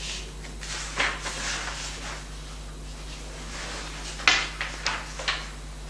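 Pages of a small book being handled and turned: a few short paper rustles and taps, with a quick cluster of them about four seconds in.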